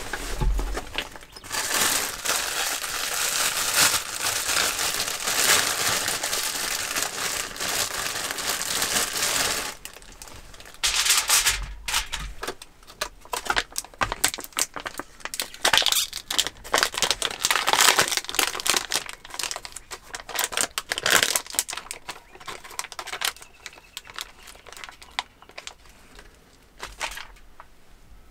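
Plastic food packaging crinkling as it is handled. There are about eight seconds of continuous crinkling, then it stops abruptly and gives way to scattered rustles and crackles as a packet of sliced ham is opened and the slices are peeled off.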